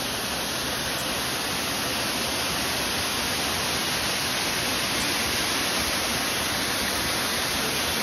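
Waterfall cascading over rock ledges: a steady, unbroken rush of falling water.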